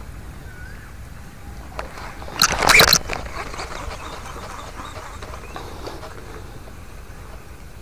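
Baitcasting rod and reel being handled: one short, loud burst of noise about two and a half seconds in, then the faint whir of the reel being wound in.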